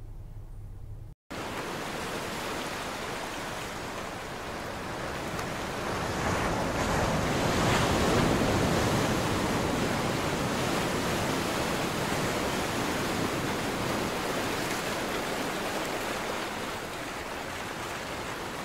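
Ocean surf washing onto a beach, with wind, starting suddenly about a second in; the surge is loudest around seven to nine seconds in, then settles to a steady wash.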